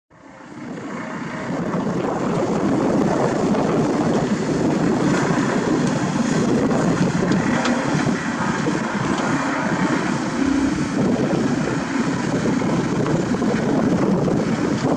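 Diesel engine of a Komatsu WA470 wheel loader running steadily as it works, fading in over the first second or two.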